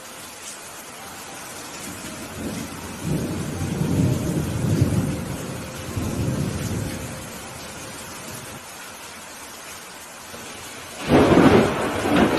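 Steady rain with thunder: a low rolling rumble builds a few seconds in and fades out, then a sudden, louder, sharper thunderclap breaks near the end.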